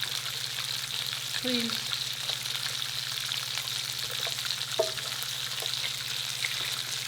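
Food sizzling on a hot indoor electric grill: a steady frying hiss, with a single light click about five seconds in.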